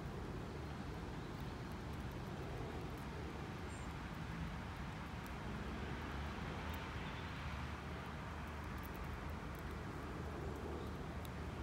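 Steady low rumble of distant road traffic, with a few faint ticks.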